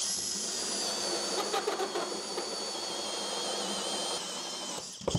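Power drill running a 2.5-inch hole saw through a wood-framed wall, with a steady high motor whine over grinding cutting noise. It cuts off suddenly about five seconds in, as the saw goes through.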